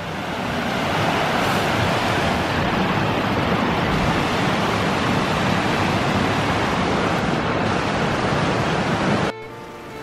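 Fast-flowing mountain river rushing over rocks in rapids: a steady, loud rush of water that swells over the first second and cuts off abruptly near the end.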